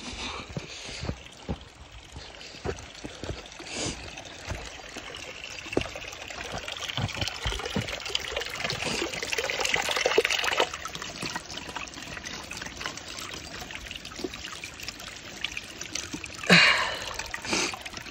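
Footsteps crunching over loose scree on a steep path, with small stones trickling and clattering underfoot, and a louder rustle near the end.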